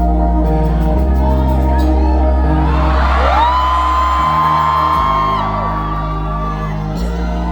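Live pop music through a concert sound system, with held bass and synth notes changing about once a second, as the audience whoops and screams over it, one long high cry rising and falling in the middle.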